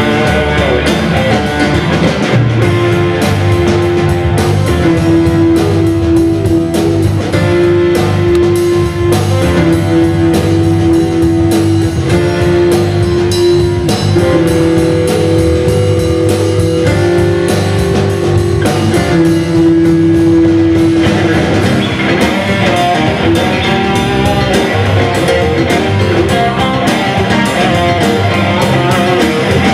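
Live blues-rock band playing an instrumental break. A Fender Telecaster electric guitar plays over bass and drums, with long held notes through the first two-thirds and busier playing near the end.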